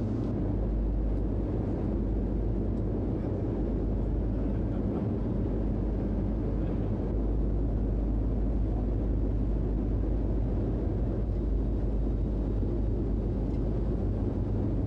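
Steady engine drone and rumble of a military transport aircraft heard from inside its cargo hold in flight, with a constant deep hum and no change in pitch or level.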